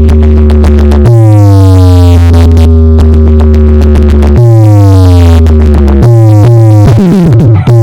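Loud electronic sound-check music built on a heavy synthesizer bass: long held bass notes, each starting with a falling pitch slide, change every one to three seconds, and a fast downward sweep comes near the end.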